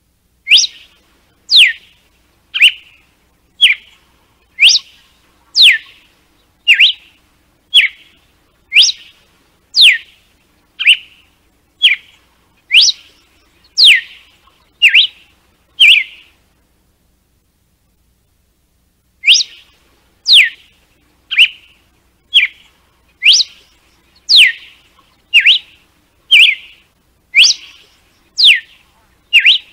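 Red-cowled cardinal (galo-de-campina) giving its 'açoite' (whip) song: loud, sharp whistled notes, each a quick downward sweep, about one a second, with a pause of about three seconds a little past halfway.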